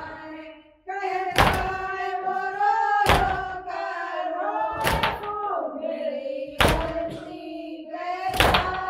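A nauha lament chanted by a voice in a slow, wavering melody, with matam: heavy hand strikes on the chest in time with it. There are five strikes, about one every 1.7 seconds.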